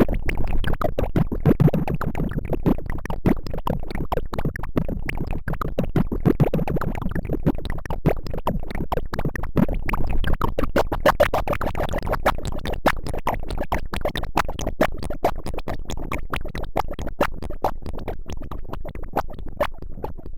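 Electronic music track made in FL Studio Mobile, built from rapid chopped, scratch-like stuttering sample hits many times a second over a low bass bed.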